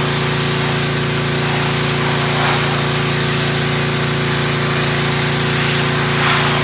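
Pressure washer running: a steady hum from its motor and pump under the hiss of the high-pressure water jet spraying onto wooden fence boards.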